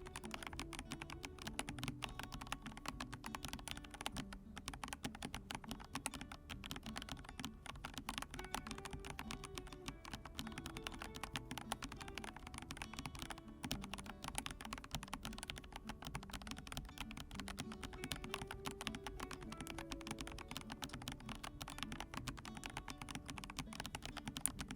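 Continuous typing on a full-size hot-swap mechanical keyboard, the Monstargear Ninja108 PRO, with Gazzew Boba U4T tactile non-click switches and PBT keycaps: a steady stream of key clacks. Soft background music plays under it.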